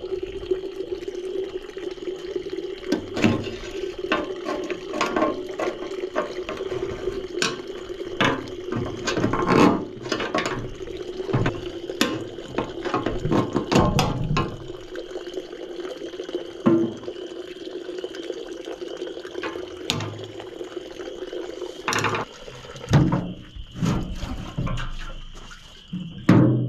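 Water running, with many irregular knocks and clunks.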